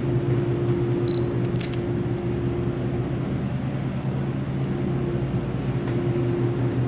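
Steady low mechanical hum of a running machine, such as shop equipment, with a short faint high beep about a second in.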